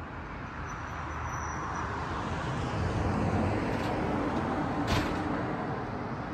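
Steady background noise with a low rumble, slowly swelling, and a brief click about five seconds in.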